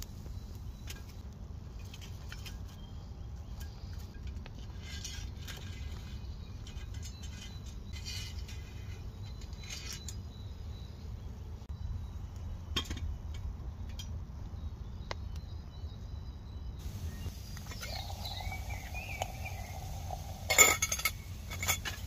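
Twig fire crackling with scattered pops in a stainless-steel folding firebox stove, over a low wind rumble. Near the end a pot clinks sharply twice as it is set on the stove's metal pot supports.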